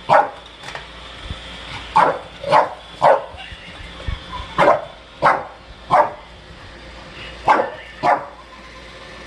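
A dog barking, about ten short, sharp barks, mostly in quick pairs or threes with brief pauses between.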